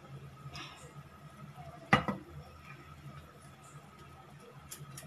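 Oil trickling in a thin stream into an empty iron kadhai, faint, with one sharp clink about two seconds in and a few light ticks near the end.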